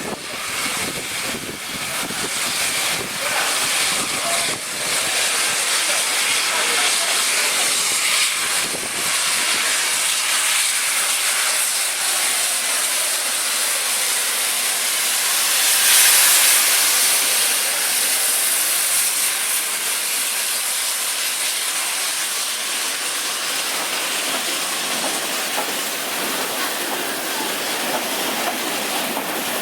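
Steam locomotive hissing steam steadily, with a louder burst of hiss about halfway through.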